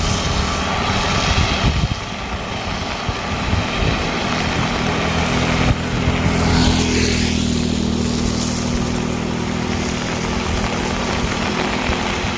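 A motor vehicle's engine running steadily, its hum growing stronger about halfway through, over a constant hiss.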